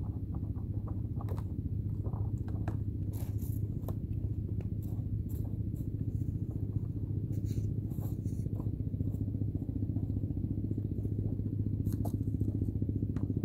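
A steady low engine hum that runs on without change, with scattered light clicks and scrapes over it.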